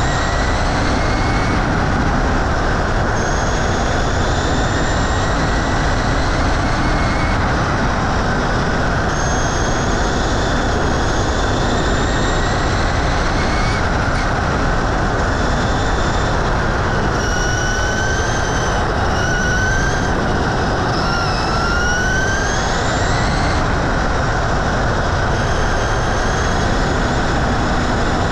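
Onboard sound of a Traxxas Slash 2WD RC truck at speed: a high electric-motor and gear whine climbs in pitch several times as it accelerates and breaks off when the throttle is released. Under it runs a steady rush of wind and tyres on the wet track.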